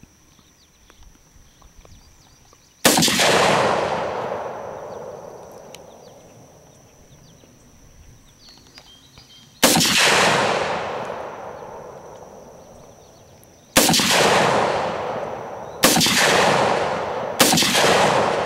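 Five rifle shots from a Ruger SR556 .223 semi-automatic rifle, spaced unevenly and coming faster toward the end, each followed by a long rolling echo that fades over a few seconds. The shots are striking low and missing the exploding target.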